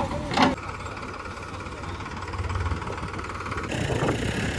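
Diesel engine idling steadily, with a short sharp sound about half a second in.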